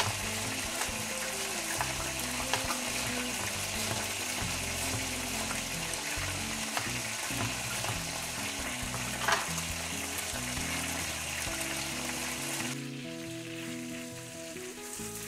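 Steady sizzle of food frying in a pan, growing fainter near the end, with a few sharp clicks of a knife on a wooden cutting board and background music underneath.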